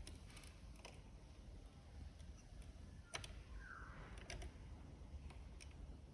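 Faint metallic clicks and light scraping of a snake rake pick being worked in a cabinet lock, with a few sharper ticks, the clearest about three seconds in.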